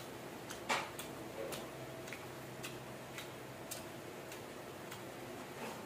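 Close-miked crunching of battered fried squid being chewed: crisp clicks at a steady rhythm of about two a second, with a louder crunch a little under a second in. A faint steady hum runs underneath.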